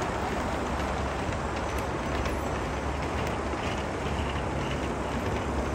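Gauge 1 model freight train rolling past on the layout's track, a steady rumble of its wagons' wheels on the rails.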